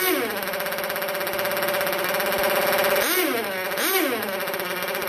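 K&B nitro two-stroke glow outboard engine running with a high-pitched, buzzy note, its revs swinging up and back down briefly at the start and twice more about three to four seconds in.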